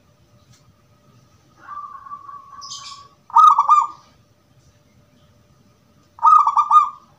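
Caged zebra dove (perkutut) of the gedong mengo type cooing: a quieter, drawn-out note about two seconds in, then a loud phrase of quick stuttering coos, repeated once near the end.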